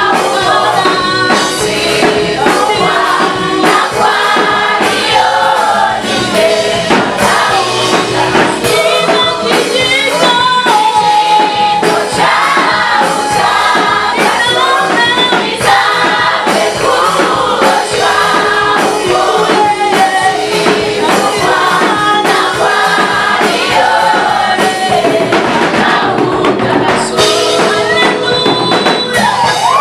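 A gospel choir of mixed voices singing with instrumental backing and a steady beat.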